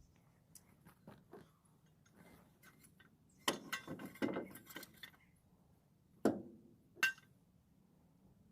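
Jack stand being positioned under the car: a run of clinks and rattles about three and a half seconds in, then two sharp clanks about a second apart.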